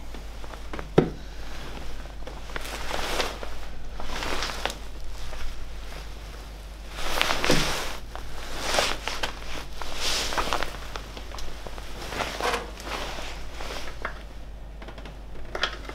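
Hand-work noise as a rocker cover is fitted onto a Classic Mini A-series cylinder head: a sharp knock about a second in, then irregular small knocks and the rustle of a padded jacket.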